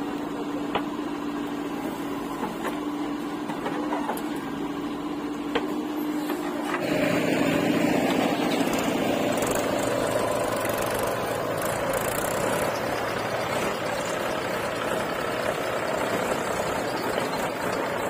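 Diesel engines of a JCB 3DX backhoe loader and a Mahindra 475 DI tractor running steadily, with a few light knocks in the first six seconds. About seven seconds in, the engine sound becomes louder and fuller as the tractor pulls away with its loaded trolley.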